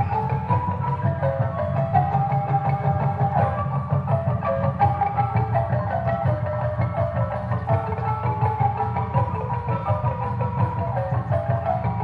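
Cambodian funeral music: a melody on xylophone-like mallet instruments over continuous drumming.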